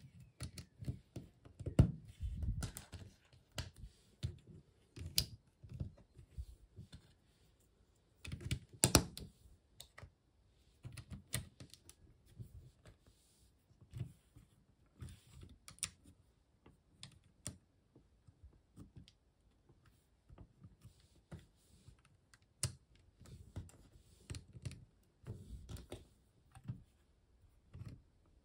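Lego bricks being handled and pressed together: irregular small plastic clicks and taps, with a few louder snaps about two seconds and nine seconds in.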